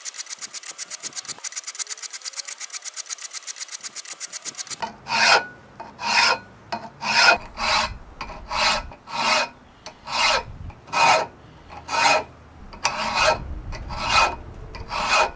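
Hand file scraping back and forth across a knife's steel and handle section held in a vise. It starts as a rapid, even run of strokes, then about five seconds in changes to slower, separate strokes, about one and a half a second.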